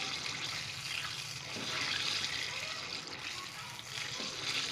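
Mango pie frying in a pan, a steady sizzle that rises and falls.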